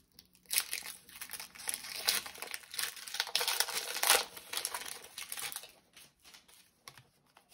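Foil Pokémon TCG booster pack wrapper being torn open and crinkled by hand: a dense crackling that lasts about five seconds, then trails off into a few faint rustles.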